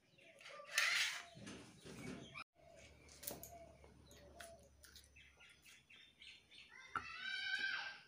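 Fresh green beans being cut on a boti, a curved blade fixed in a wooden base: scattered crisp snaps and taps as the pods are sliced. There is a rustle about a second in and a run of high chirping calls near the end.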